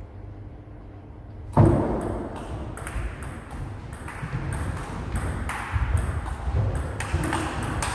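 Table tennis rally: the ball clicking off the paddles and the table, about two hits a second, echoing in a large hard-walled hall. A loud knock about a second and a half in starts it.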